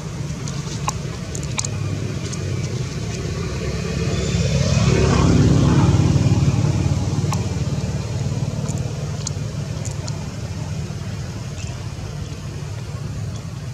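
A motor vehicle passing: a steady low engine rumble that swells to its loudest about five or six seconds in and then fades away, with a few faint clicks.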